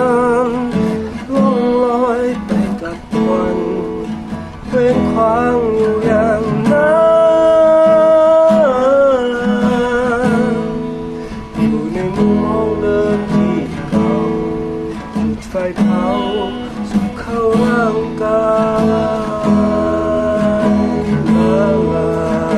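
Acoustic guitar strumming slow chords while a voice sings a long, wavering melody over it.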